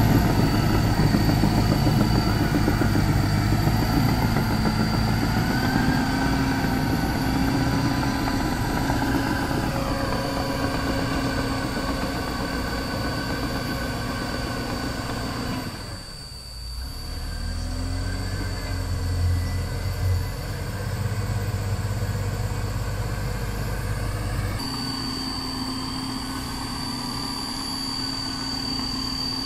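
Caterpillar D7R crawler dozer's diesel engine running steadily as the machine tracks away, slowly growing fainter, with a brief drop in level about halfway.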